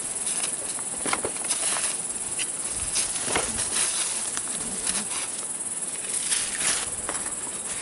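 Hand digging in soil: irregular crunching and scraping strokes of a digging tool biting into dirt, over a steady high drone of insects.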